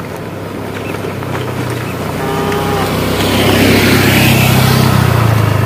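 A motor vehicle's engine grows louder as it approaches and passes close, loudest past the middle, with a brief pitched sound about two seconds in.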